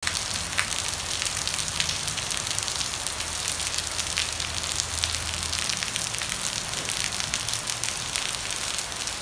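Steady rain falling on garden foliage and surfaces, an even hiss with many sharp drop hits crackling through it.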